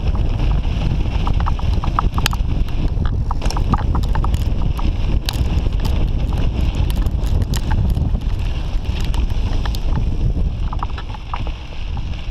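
Mountain bike riding down a dirt singletrack, heard from a bike-mounted GoPro: a continuous heavy rumble of wind and tyres on dirt, with frequent short rattling clicks as the bike jolts over the trail.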